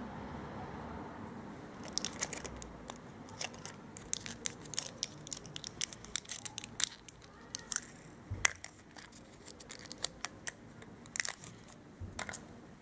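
Small sharp clicks, taps and scrapes of a Swatch Pop watch and small tools being handled during a battery change. The clicks come irregularly after about two seconds, with the loudest about eight and a half and eleven seconds in.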